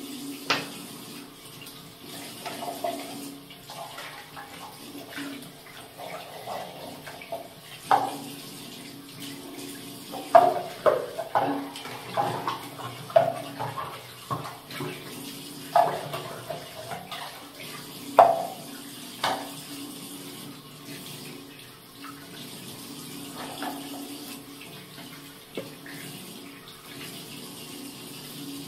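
Tap running into a ceramic washbasin as plastic toothbrush cups and toothbrushes are rinsed under it. Through the middle comes a run of sharp knocks and clatters as the plastic is handled against the basin.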